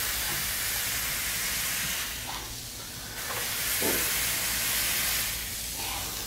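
Smash-burger patty sizzling on a hot steel flattop griddle under a cast-iron burger press: a steady hiss that eases for a moment about two seconds in, then picks back up.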